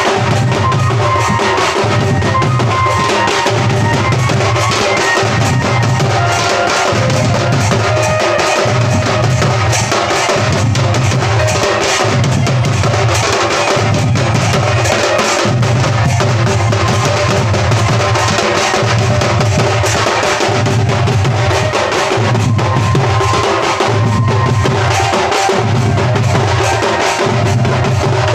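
A drum band playing a steady dance rhythm on drums, with a heavy low beat about once a second over busy drumming.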